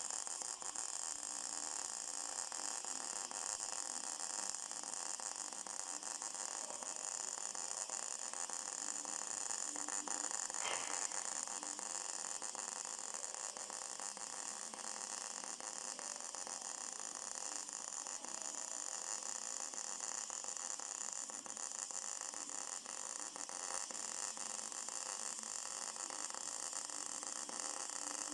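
MIG welding arc sizzling steadily as a bead is run in the flat position.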